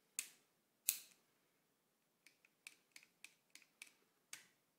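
ZB30J machine-gun trigger group worked by hand, its steel parts clicking: two sharp clicks in the first second, then a quick run of lighter clicks and one more sharp click near the end.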